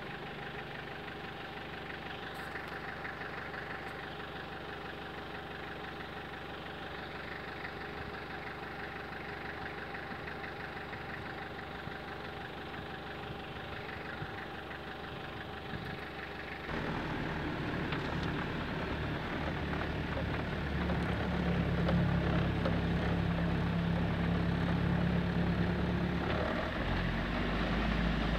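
Toyota Land Cruiser LJ73's four-cylinder diesel idling steadily. About two thirds of the way in, the engine suddenly gets louder and deeper, heard from inside the cab as the vehicle drives on, and it grows louder again a few seconds later.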